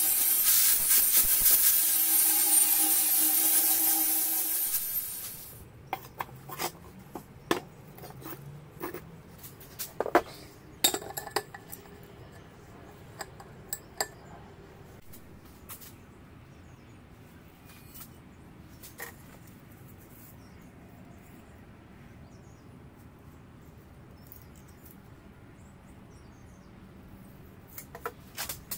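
Angle grinder running under load, its disc grinding on a steel shock absorber body with a steady whine, then winding down about five seconds in. Scattered clinks and knocks of metal parts being handled follow.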